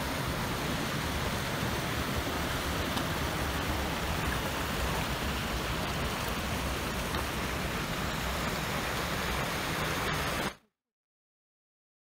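Steady rushing of a rocky mountain stream, which cuts off suddenly about ten and a half seconds in.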